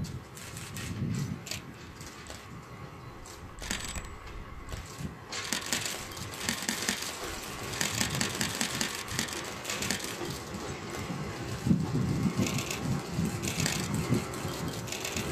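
Mizushima Rinkai Railway DD501 diesel locomotive approaching at a crawl, its low engine rumble growing louder toward the end. Irregular clicks and crackle run over it.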